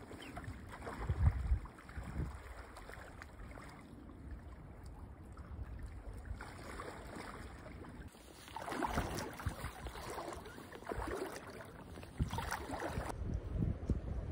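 Wind gusting on the microphone over the rush of shallow river water, with brief louder spells of water noise.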